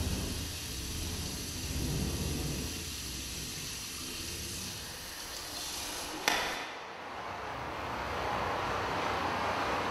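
Low rumbling drone with hiss, cut off by a single sharp hit a little over six seconds in. After the hit, a steady rushing noise of open water takes over.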